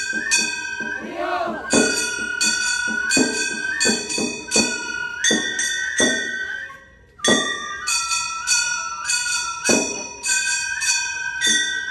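Gion bayashi festival music: small brass kane gongs struck in a quick repeating pattern, ringing, with a bamboo flute playing a wavering melody over them. The playing breaks off briefly about seven seconds in.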